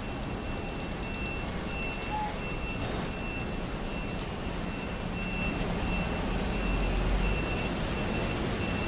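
Vehicle reversing alarm beeping steadily at one high pitch over background noise, with a low engine rumble swelling about five and a half seconds in.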